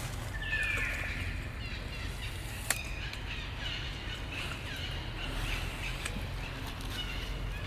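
Repeated high chirping calls. A longer call falls in pitch just under a second in, and short chirps follow over a steady low hum. A single sharp click comes about two and a half seconds in.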